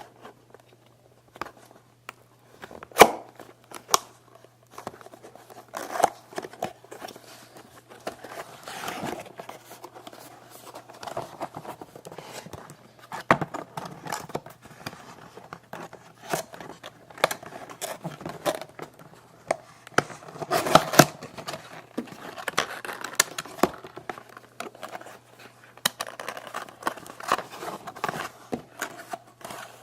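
Plastic packaging of an HDMI cable being opened by hand: irregular clicks, crackles and crinkling of the plastic, with a few sharper snaps, over a faint steady low hum.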